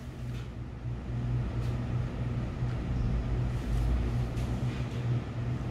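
Steady low mechanical hum of room background noise, with a few faint clicks.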